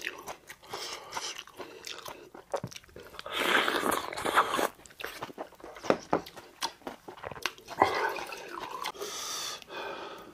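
A person eating, close to the microphone: chewing and biting food with many wet mouth clicks and crunches, and two longer noisy stretches, one about three seconds in and one near eight seconds in.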